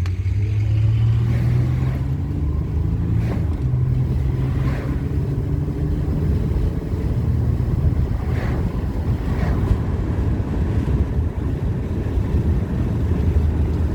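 Steady road noise and a low engine hum heard from inside a moving car.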